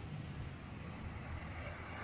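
Road traffic: engines and tyre noise of passing cars and an approaching minibus, a steady low rumble.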